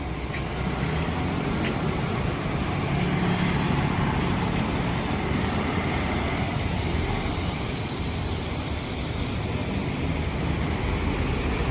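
Steady low rumble of roadside street noise, with traffic.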